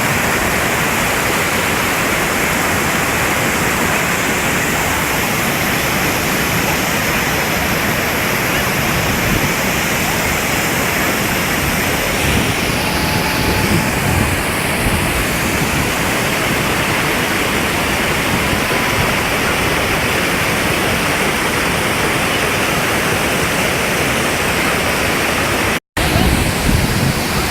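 Waterfall's falling water: a steady, continuous rushing noise, with a split-second dropout near the end.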